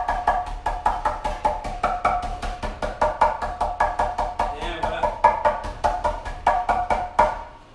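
Background music with a quick, even percussive beat over a shifting melody, cutting off suddenly near the end.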